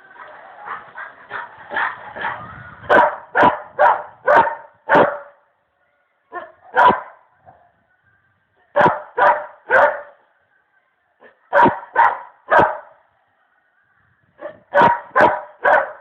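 A dog barking in loud groups of two to five short barks, with pauses of a second or more between the groups. The first couple of seconds hold a quicker, quieter run of calls.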